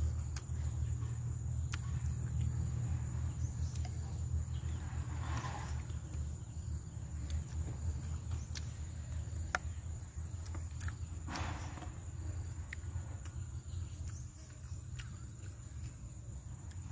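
Crickets trilling steadily over a low steady rumble, with scattered small clicks and crunches as roast pig head is cut with a knife and eaten by hand.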